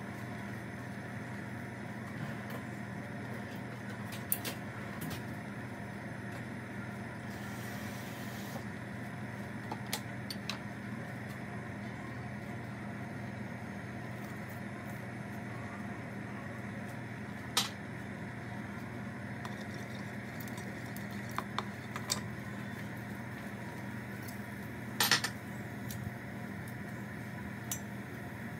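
A steady low hum runs throughout, with a handful of sharp clinks and taps of a ceramic bowl and spatula against a stainless steel pot as garlic slices and cumin seeds are tipped into the oil. The loudest tap comes about 25 seconds in.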